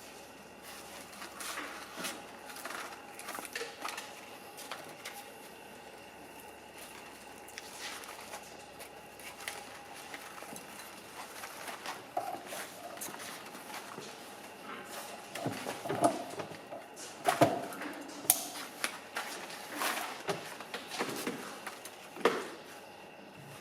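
Hand-work handling sounds: scattered clicks, knocks and rustles of objects being moved and worked, louder and busier in the second half.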